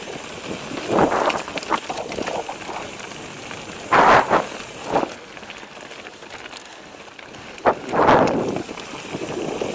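Mountain bike riding over a rough dirt and stone forest trail: tyres crunching and the bike rattling, with a few louder surges of noise over rougher ground.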